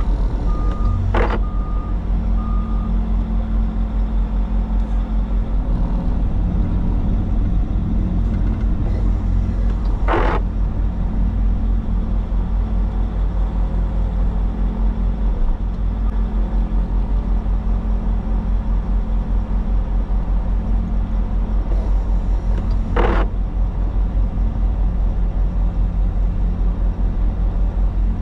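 Bobcat T62 compact track loader's diesel engine running steadily under load. Its backup alarm beeps a few times at the start, and three sharp knocks come at long intervals.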